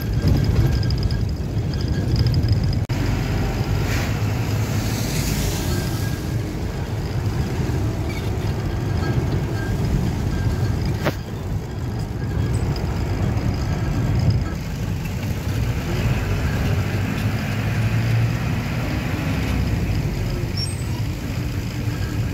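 Steady low rumble of a vehicle's engine and tyres heard from inside the cabin while driving, with a single sharp knock about eleven seconds in.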